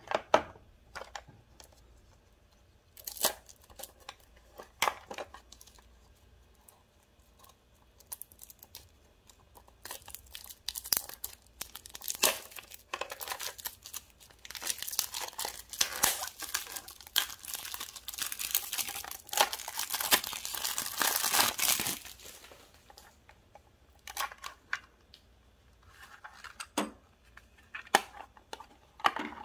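Cellophane shrink-wrap being torn and peeled off a cassette tape case, crinkling for several seconds in the middle. Sharp clicks and snaps of the hard plastic cassette case being handled and opened come before and after, with the tape taken out near the end.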